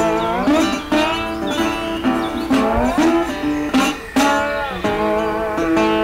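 Background music: a plucked-string tune whose notes often slide up in pitch.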